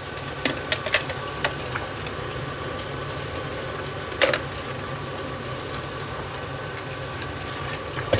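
Vegetables sizzling and simmering in a cast-iron Dutch oven as broth is poured in. There are a few light clicks early on and a louder knock about four seconds in.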